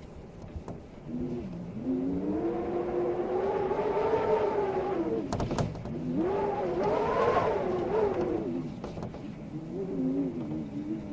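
Wind howling in gusts, a whistling tone that slowly wavers up and down in pitch and swells and fades, with a few sharp clicks about halfway through.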